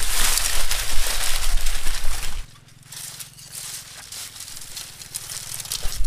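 Loud rustling and crackling, like foliage or a bag being handled, that cuts off suddenly about two and a half seconds in, leaving only a faint low hum.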